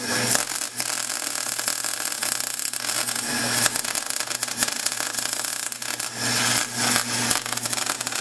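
MIG welder arc crackling steadily as a weld pass is run around a steel steering shaft joint, welding the cut D shaft into the spline and pulling the shaft back straight.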